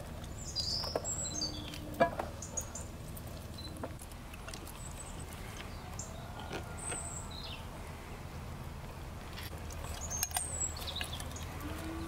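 Hand-cranked cast-iron meat grinder being worked, giving scattered irregular clicks and knocks, the sharpest about two seconds in, with small birds chirping in the background.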